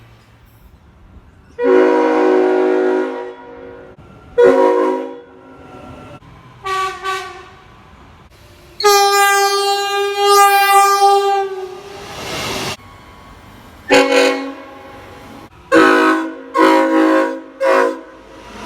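Locomotive air horns sounding a series of blasts: a long one near the start, a few short ones, a blast of about three seconds in the middle, then several short blasts in quick succession near the end. Some blasts sound as a chord of several notes, others as a single note.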